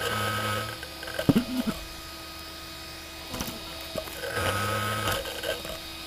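A landed DJI Phantom quadcopter giving two short buzzing bursts about four and a half seconds apart, over a faint steady whine.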